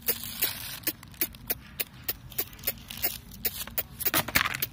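Quick footsteps slapping on a concrete road, about four sharp steps a second, with a louder scuffing rustle near the end.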